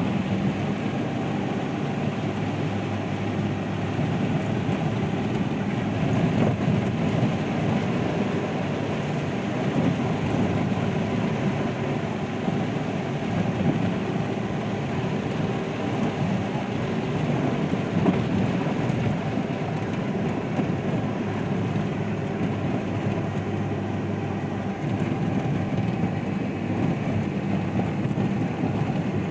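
Heavy rain falling, a steady rushing noise that holds at one level throughout.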